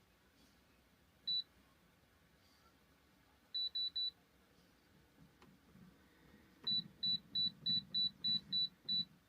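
Air fryer control panel beeping as its buttons are pressed to add cooking time: one short high beep, then three in quick succession, then a run of eight at about three a second.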